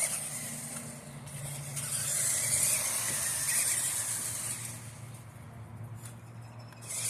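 RC monster truck driving, its motor and gears whining. It runs louder from about two seconds in and eases off near the end.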